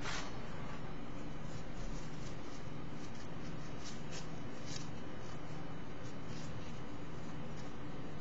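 Faint scattered clicks and scrapes of fingers handling and screwing together small metal 510-thread atomizer parts, over a steady low electrical hum and hiss.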